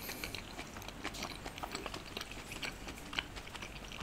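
Close-miked chewing of a steamed atta (whole-wheat) momo dumpling with the mouth closed: a faint run of soft, irregular mouth clicks and smacks.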